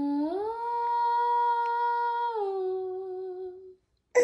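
A woman's voice singing a slow wordless tune in long held notes. It steps up from a low note to a higher one, holds it, then drops a little and fades out. At the very end a baby's loud cry bursts out.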